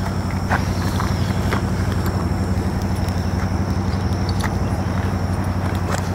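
ATV engine idling steadily, with a few sharp clicks from a tow harness's buckles and straps being fastened.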